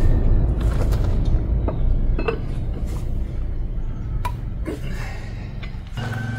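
A few sharp metal clinks from a lug wrench working the lug nuts on a Ford Transit front wheel, over a steady low rumble. Background music comes in near the end.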